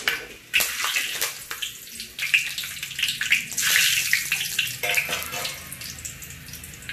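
Hot oil sizzling and crackling in a wok around whole spices that have just gone in, with a run of sharp pops and spatters. It is loudest around the middle and settles to a softer sizzle near the end.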